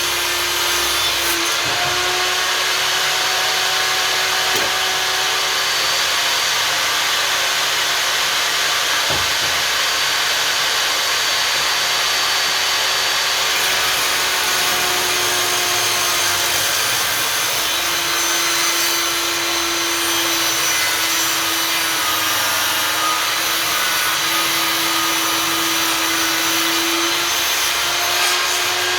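Einhell table saw running and cutting thick wooden boards: a steady motor whine over the noise of the blade in the wood, its pitch wavering slightly now and then.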